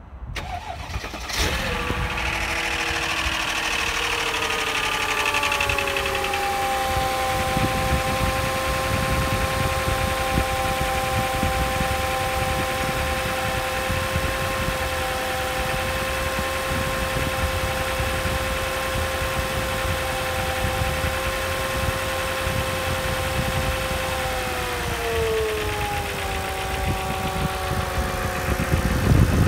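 Mercedes M113 V8 engine starting about a second and a half in, then idling with a steady rumble and a whine. The whine settles after a few seconds and then drops in pitch near the end as the idle speed falls.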